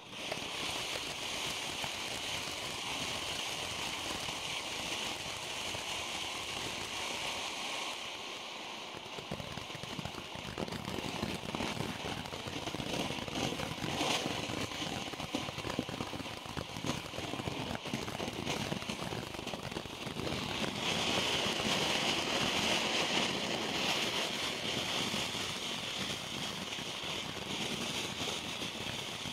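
Standard Fireworks 'Fountain of Knowledge' low-noise ground fountain spraying sparks with a steady hiss and crackle. It starts suddenly and runs without a break, getting somewhat louder partway through.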